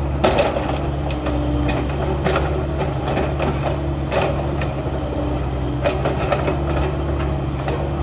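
Diesel engine of heavy construction machinery running steadily, with scattered metallic knocks and scrapes from the excavation work.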